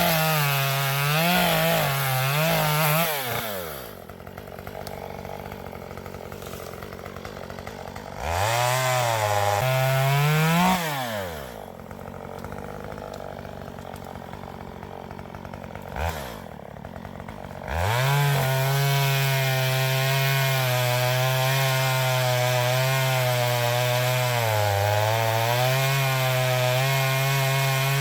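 Chainsaw cutting up a fallen tree, revving high under load and twice dropping back to idle between cuts. For the last ten seconds it holds a steady, loud run through a long cut.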